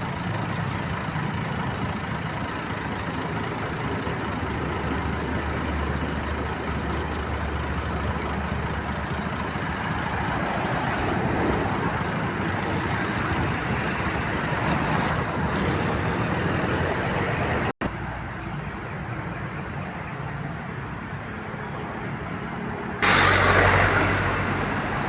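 Road traffic with heavy vehicles: engines running and tyres passing in a steady wash of noise. The sound drops out for an instant about 18 seconds in, and a sudden louder rush of noise starts about 23 seconds in.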